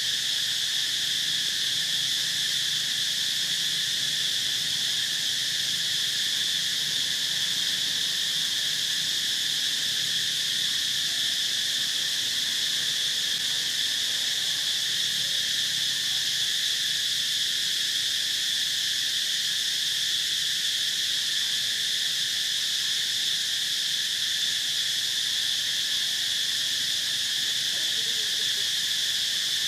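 Steady chorus of insects, a shrill high drone that holds at an even level without a break.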